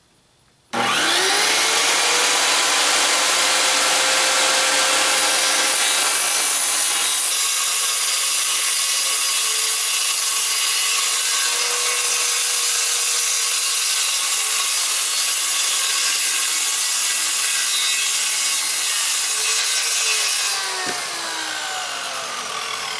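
Corded circular saw starting up about a second in, its motor whine rising, then ripping steadily through a long plywood board. Near the end the noise drops and the motor's pitch falls.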